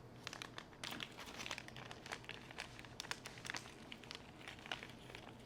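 Faint, irregular crinkling and light clicking of small plastic cleaning-kit tools and packaging being handled.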